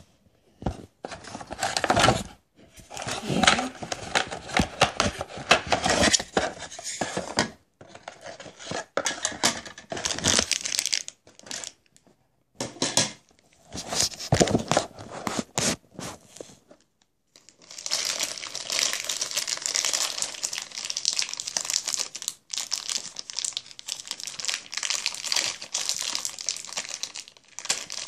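Plastic packaging crinkling and tearing as it is handled and opened, in irregular bursts with short pauses, then more continuously over the last ten seconds.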